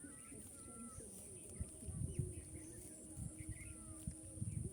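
Small birds chirping, with a few dull knocks about two seconds in and again near the end.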